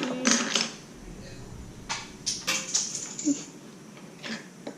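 Plastic Lego bricks clicking and clattering as pieces are handled and sorted, a string of separate sharp clicks.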